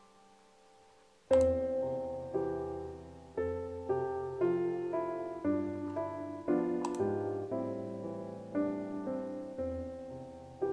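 Solo piano background music playing slow, gentle chords, about one struck note or chord a second, each ringing and fading. It begins after a brief pause about a second in.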